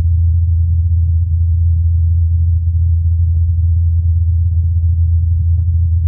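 Steady low hum of NASA's Ingenuity Mars helicopter's rotor blades, a single tone near 84 Hz, picked up on Mars by the SuperCam microphone on the Perseverance rover. The recording is filtered to isolate the blade tone and boosted in volume, leaving a few faint ticks above the hum.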